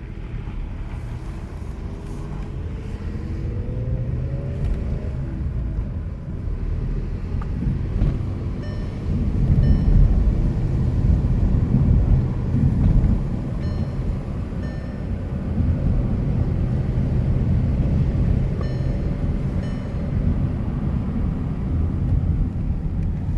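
Car driving along: steady engine and road rumble, with the engine note rising as it accelerates in the first few seconds.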